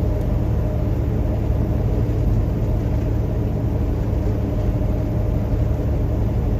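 Truck engine droning steadily under load while pulling up a hill, with road noise, heard from inside the cab.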